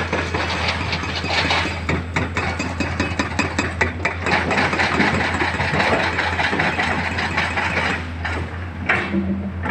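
Diesel engine of heavy earthmoving machinery running with a steady low hum, under a dense rattling clatter that eases about eight seconds in.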